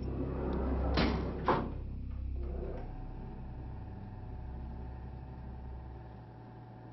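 Elevator doors sliding shut: a swelling rush that ends in two sharp clunks about half a second apart, followed by a steady low hum that fades near the end.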